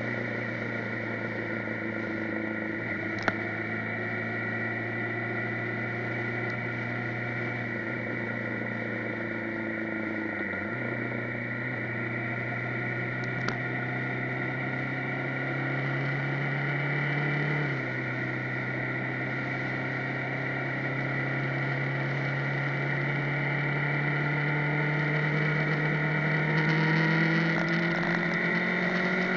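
Motorcycle engine running at road speed. Its pitch dips at gear changes about ten and eighteen seconds in, then climbs slowly as the bike speeds up.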